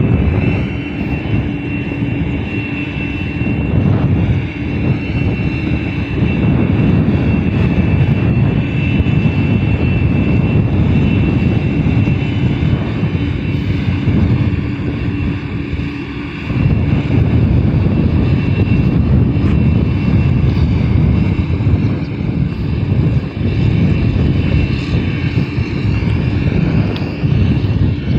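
Heavy diesel construction machine running steadily at a constant level, with a steady whine over the low engine drone.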